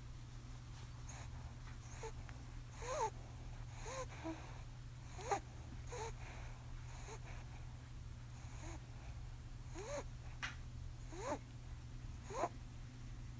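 Pet rabbit snoring in its sleep: short, squeaky breaths that bend in pitch, about one every second or so.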